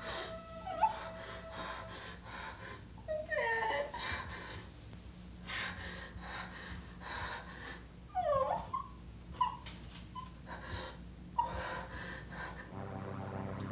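A person gasping and wheezing for breath, with short wavering whimpering cries between the breaths. A low steady drone comes in near the end.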